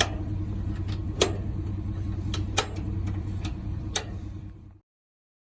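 A steady low engine hum, like an idling vehicle, with about five sharp clicks and knocks spaced through it; all sound cuts off suddenly near the end.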